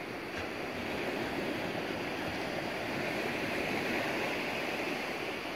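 Steady rushing water, an even wash of noise that swells slightly partway through, with no separate splashes or breaks.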